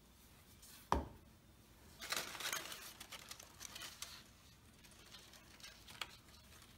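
Paper parts being handled while glue is put on them: a sharp tap about a second in, then light paper rustling and small clicks.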